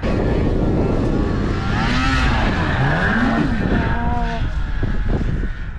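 Snowmobile engine revving, its pitch falling and rising again in the middle over a loud, steady rumble.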